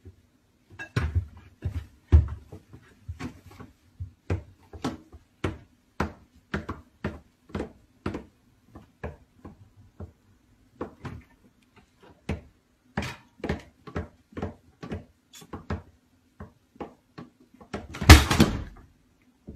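Many short knocks and clatters as a baby crawls about inside a wooden kitchen cabinet among pans and bowls, over a faint steady hum. About eighteen seconds in comes a louder bang as the cabinet door is pushed shut.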